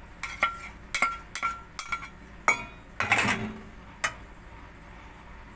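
Metal spoon and stainless steel bowls clinking as chopped spring onions are knocked out into a mixing bowl: four ringing taps in under two seconds, then a scrape and a couple of knocks of the spoon in the bowl around the middle.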